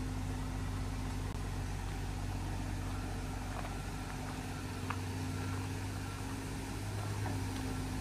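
An engine idling steadily, a low, even hum.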